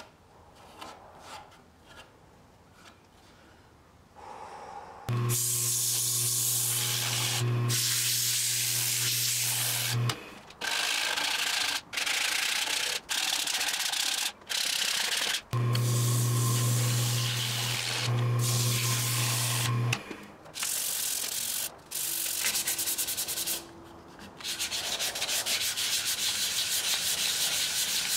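Sandpaper rubbing against a wooden bowl spinning on a lathe, in several stretches broken by short gaps. In two of the stretches a steady motor hum sounds underneath. The first few seconds are quieter, with light scattered clicks.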